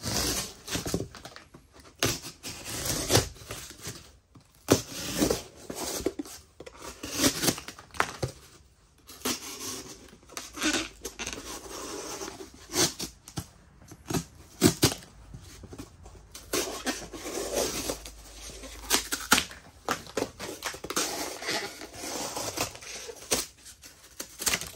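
Pro-Tech TR-3 folding knife's MagnaCut blade cutting through glued double-wall corrugated cardboard: a long run of irregular tearing, scraping cuts with sharp snaps in between.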